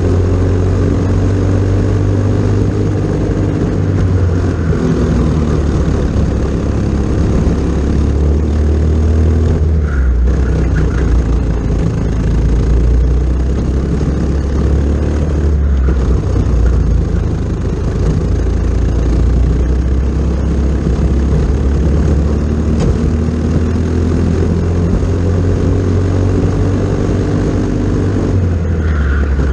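Briggs & Stratton LO206 single-cylinder four-stroke kart engine running hard under race load, its pitch sliding down and back up as the throttle comes off and on through the corners.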